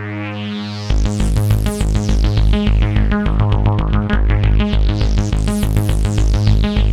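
Roland JD-990 synthesizer playing a supersaw patch: a held chord, then about a second in a fast arpeggiated pattern from a Roland GAIA's arpeggiator with a pulsing bass, its tone sweeping bright and back down twice.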